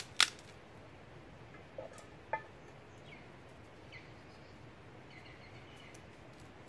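Two sharp cracks at the start and two quieter knocks about two seconds in, as kindling sticks are handled and fed into a small fire in a barbecue bowl. Birds chirp faintly over a steady outdoor hiss.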